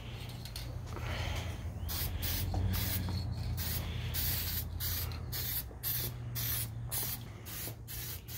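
Aerosol spray-paint can (rattle can) spraying in many short hissing bursts, about two a second, laying a light tack coat of paint; a low steady hum runs underneath.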